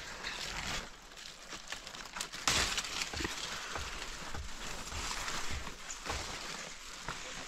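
Leaves and vine stems rustling and crackling as they are pushed aside and handled, with many small sharp crackles. The rustling grows louder about two and a half seconds in.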